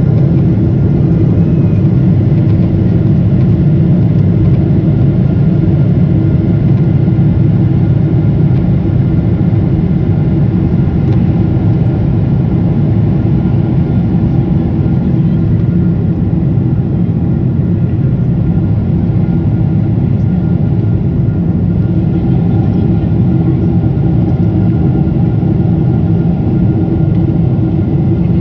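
Steady cabin noise inside a passenger airplane in flight: an even, low rumble of engines and airflow with a faint steady hum on top, unchanging throughout.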